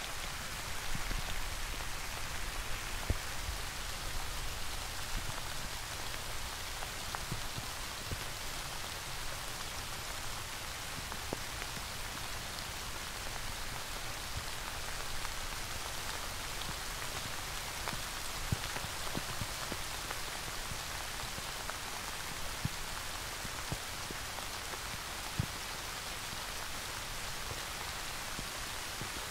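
Steady rain falling: an even hiss with scattered sharp, louder drops landing close by.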